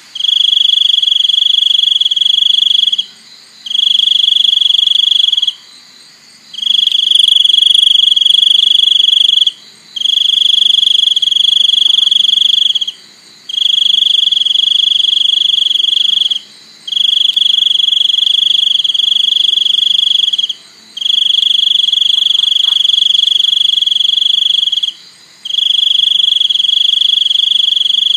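A cricket trilling loudly at one high, steady pitch, in long bursts of two to four seconds separated by short pauses.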